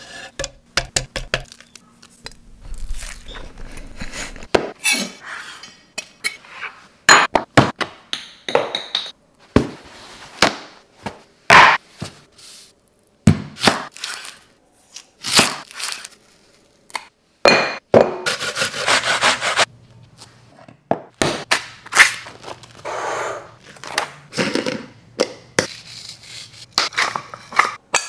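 Close-miked kitchen prep: a chef's knife slicing through an onion onto a wooden cutting board, among many short knocks, clicks and scrapes of food and utensils.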